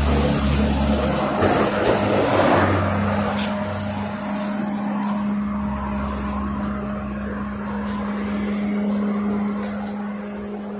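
Cabin noise of a LiAZ-5280 trolleybus on the move: road and running noise with a steady hum, loudest in the first few seconds and easing slightly toward the end.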